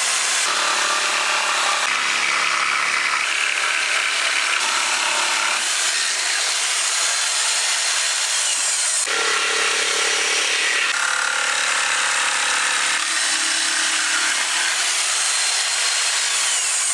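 Power saw cutting fir tongue-and-groove cladding boards: a steady, loud, noisy whirr.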